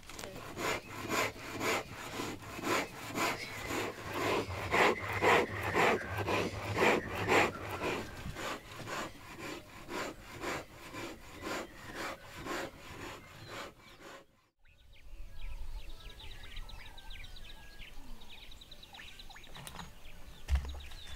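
Wood being worked by hand with rhythmic back-and-forth rubbing strokes, about two a second, that cut off suddenly a little past halfway. After the cut comes a quieter stretch with a faint, fast, high ticking.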